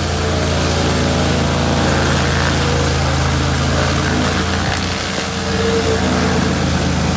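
Chainsaw engine running steadily, with a brief dip in level about five seconds in before it picks back up.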